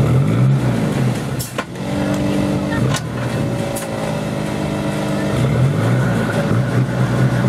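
Off-road competition 4x4's engine revving up and down, then holding at a steady pitch, as the vehicle works in deep mud. A few sharp clicks or snaps come through in the middle.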